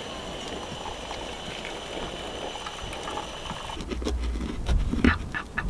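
Hot water poured from a kettle into a pour-over coffee filter, a steady pouring hiss. Then a knife cutting through a toasted croissant sandwich, with a run of sharp taps and scrapes of the blade on the plate.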